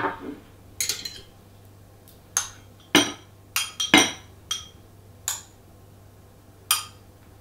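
Tableware clinking: a utensil knocking against a plate or dish in about nine light, ringing clinks at irregular intervals, the loudest around three and four seconds in.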